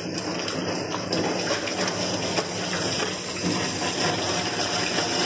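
Water spraying from a hand-held shower sprayer onto a dog's wet coat and splashing into a stainless steel tub: a steady rushing hiss that grows a little louder about a second in.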